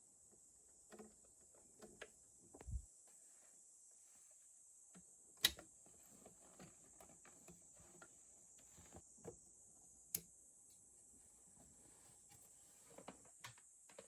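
Quiet room with scattered small clicks and taps of objects being handled, including a soft low thump a little over two and a half seconds in and sharp clicks about five and a half and ten seconds in. A steady high insect chirr runs underneath.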